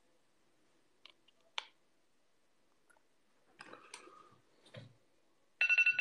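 A few faint clicks and handling noises, then near the end an electronic countdown timer starts beeping rapidly, signalling that its countdown has run out.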